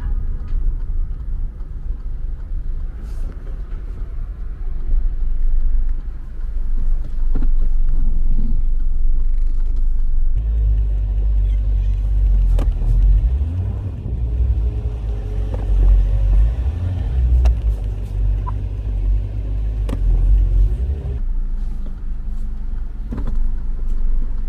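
Land Rover running and being driven a short way, a low rumble that grows heavier from about ten seconds in until about twenty-one seconds, with a few sharp clicks. The engine has lost coolant and has been overheating.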